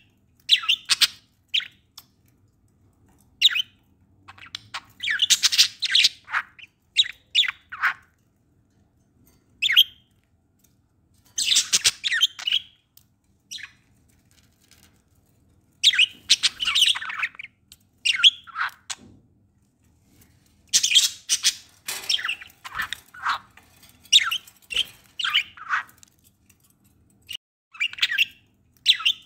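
Budgerigars chirping and squawking in irregular clusters of short, raspy calls, with pauses of a second or more between clusters.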